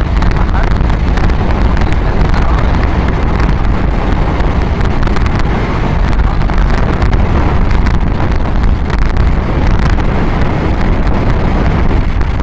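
Wind rushing and buffeting over the microphone of a camera carried on a moving motorcycle, with the bike's running and road noise underneath. It is loud and steady, with no letup.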